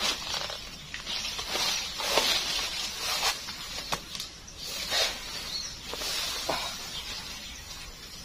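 Nylon hammock fabric rustling and swishing in several short bursts as a person sits down into it and leans back, with a few light ticks in between.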